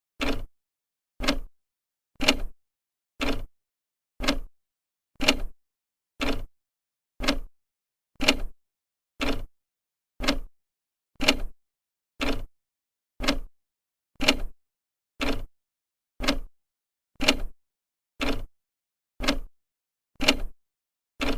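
Old clock ticking, one sharp tick a second as the second hand steps, with silence between the ticks.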